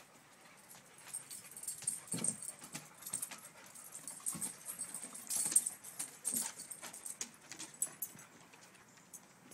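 Several dogs playing rough on a wooden deck: claws clicking and scrabbling irregularly on the boards as they wrestle and chase, with a few short low grunts or bumps, the busiest stretch about five seconds in.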